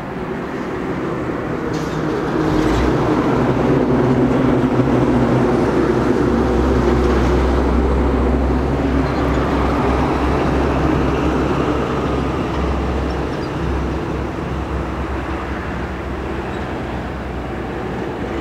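Highway traffic: a heavy diesel vehicle's deep engine rumble and tyre noise swell over the first few seconds, hold, then slowly fade as it passes.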